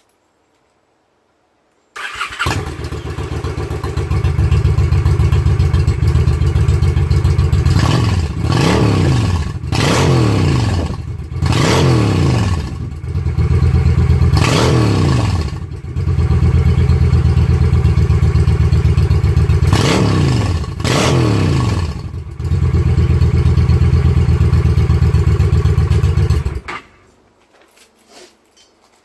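Honda Shadow 750 V-twin motorcycle engine running through stock exhaust pipes with the baffles cut out. It starts about two seconds in, idles loudly and is revved in several quick blips, then is switched off near the end.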